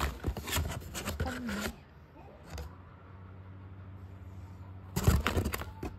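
Rapid clicks and clatter, as of things being handled, for about the first second and a half and again near the end, over a steady low hum.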